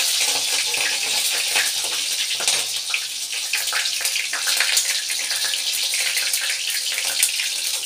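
Chopped green chillies frying in hot mustard oil with cumin and mustard seeds in a kadai: a loud, steady sizzling hiss peppered with small pops and crackles.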